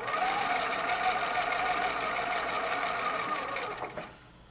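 Electric domestic sewing machine stitching a seam at a steady speed, then stopping about four seconds in.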